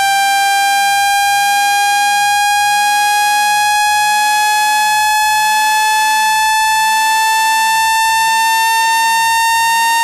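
A synthetic water-eject tone, steady, loud and buzzy with many overtones, gliding slowly upward in pitch. It is a frequency sweep meant to vibrate water out of a phone's charging port.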